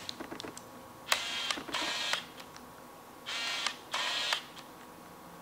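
Screw-drive autofocus of a Nikon AF 85mm f/1.4D lens, driven by the camera body's focus motor, racking focus: four short whirs of about half a second each, in two pairs about two seconds apart.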